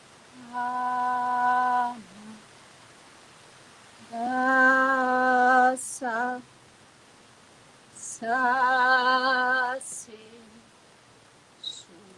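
A woman's voice holding three long wordless notes on the same pitch, each about a second and a half, the second and third with a slight vibrato.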